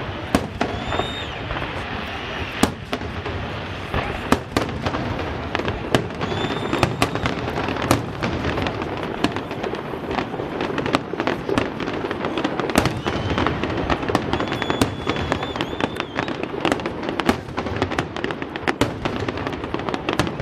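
Fireworks display finale: a continuous barrage of bangs and dense crackling over a steady rumble, with a few high whistles.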